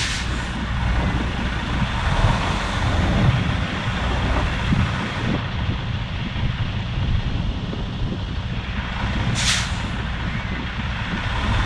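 Diesel engine of a bobtail semi tractor running, heard from inside the cab, with a short sharp hiss about nine and a half seconds in.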